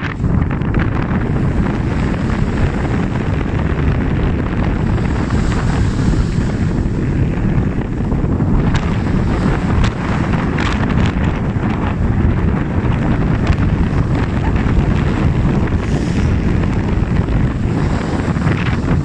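Strong wind blowing across the microphone: steady, loud low rumble and buffeting.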